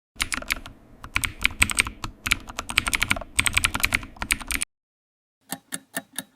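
Computer keyboard typing: rapid, irregular key clicks for about four and a half seconds. After a short pause, a steady ticking of about five ticks a second starts near the end.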